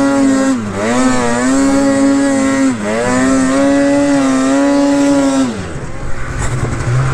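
Two-stroke mountain snowmobile engine held at high revs, its pitch dipping briefly twice as the throttle eases and comes back on. About five and a half seconds in the revs drop away to a lower, rougher running.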